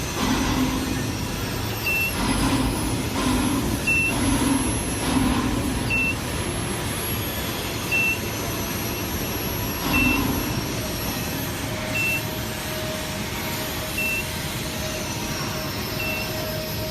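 Steady machinery noise with a short, high electronic beep repeating about every two seconds. A low pulsing hum comes and goes in the first half, and a steady mid-pitched tone joins about two-thirds of the way in.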